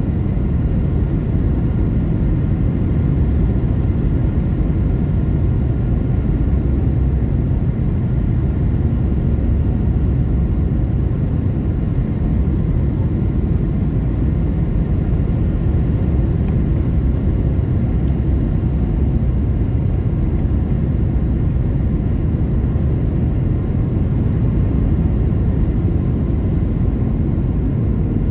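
Steady cabin noise inside a Boeing 737-800 powered by CFM56 engines: an even low rumble of engines and airflow with faint steady whining tones above it and no change.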